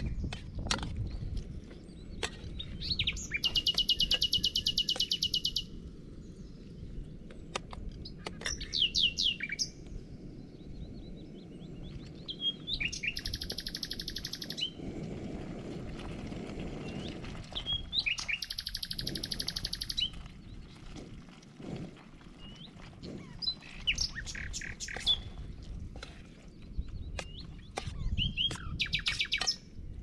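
Songbirds singing: a high, rapid trill of about two seconds recurs several times, mixed with shorter chirps and down-slurred notes.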